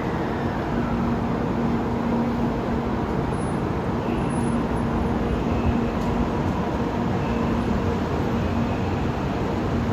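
Steady railway-platform ambience: an even rumble of noise with a constant low hum, typical of a Shinkansen train standing at the platform.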